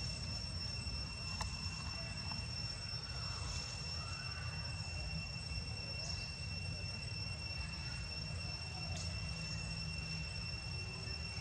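A steady, unbroken high-pitched insect drone, one even tone with a fainter overtone above it, over a constant low rumble.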